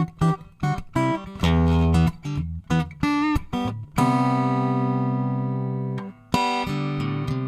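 Segovia D07 GN dreadnought acoustic guitar played in strummed and picked chords. About four seconds in, one chord is struck and left to ring, fading for about two seconds, before the strumming starts again.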